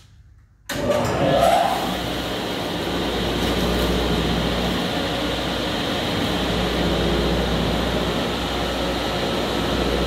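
Delta table saw and a bag-type Oasis Machinery dust collector switching on together less than a second in, the collector started automatically by a homemade switch that senses the saw turning on, then both running steadily with a low hum.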